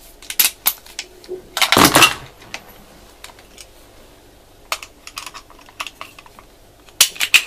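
Metallic clicks and rattles from handling a Smith & Wesson 327 TRR8 CO2 revolver: the cylinder is swung out and its cartridge shells are reloaded with a speedloader. A longer, louder clatter comes about two seconds in and a quick run of clicks near the end.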